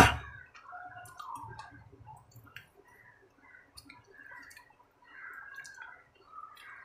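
Close-up mouth sounds of a person chewing food: small wet clicks and lip smacks coming and going. A single sharp, loud thump at the very start is the loudest sound.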